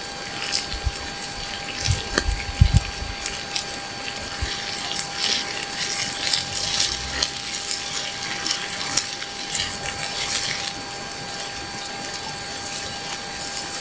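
Chicken pieces and onion sizzling and crackling in hot oil in a cast-iron skillet over a campfire, stirred and scraped with a wooden spatula; a few low thuds about two to three seconds in.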